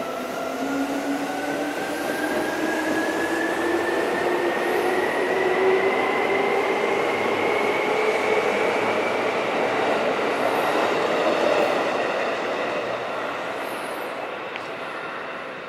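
Seibu Railway electric commuter train pulling away. Its traction motor whine rises steadily in pitch for about nine seconds over the rumble of the wheels on the rails, then the sound fades as the train draws away.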